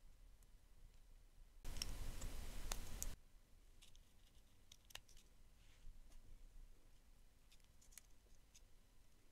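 Faint small clicks and taps of plastic LEGO minifigure parts being handled and fitted together. About two seconds in there is a louder stretch of hiss with a few clicks in it, lasting about a second and a half.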